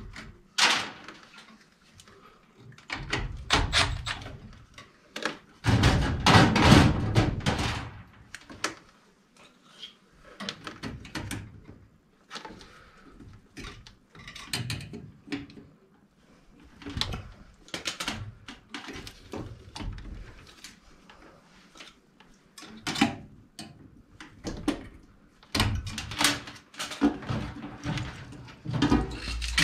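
Irregular knocks, clicks and rattles of furnace parts and wiring being handled inside a sheet-metal gas furnace cabinet. The busiest clatter comes a few seconds in and again near the end.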